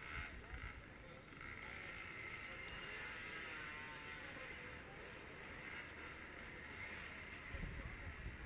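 Faint, steady drone of motorcycle engines running.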